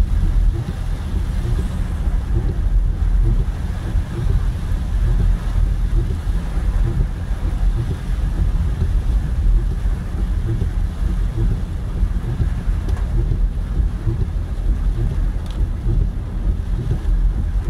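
Steady cabin noise of a car driving through heavy rain: tyres running on the wet, puddled road and rain on the car, under a constant low rumble.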